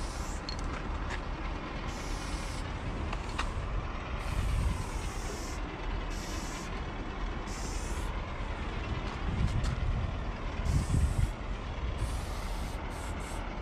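Aerosol spray paint can hissing in several short bursts, each about a second long, as outlines are sprayed onto a wall. A steady low rumble runs underneath.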